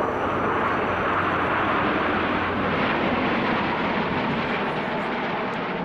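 A formation of Aermacchi MB-339 jet trainers flying past, their Rolls-Royce Viper turbojets making a steady rushing jet noise that grows slightly fainter near the end.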